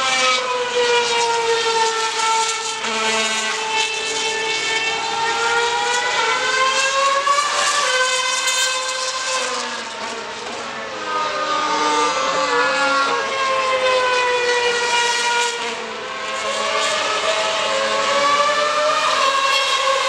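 2013 Formula 1 cars' 2.4-litre V8 engines running around the circuit, a high whine that rises and falls slowly in pitch, dipping in loudness twice.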